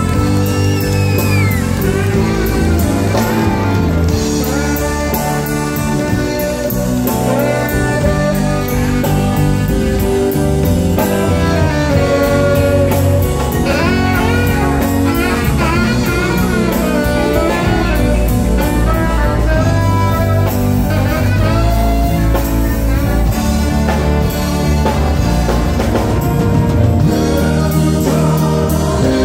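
Live band playing an uptempo song on electric guitars and drums, with a saxophone, and a man singing lead.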